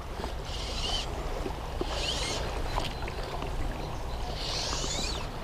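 Steady rush of river current, with three short high hissing swishes, about half a second in, about two seconds in and near the end.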